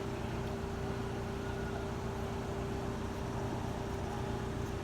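Engine idling with a steady, unchanging hum.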